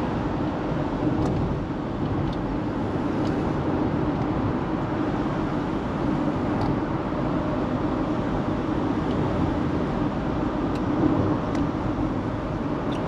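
Steady road and engine noise of a car being driven, heard from inside the cabin, with a few faint ticks here and there.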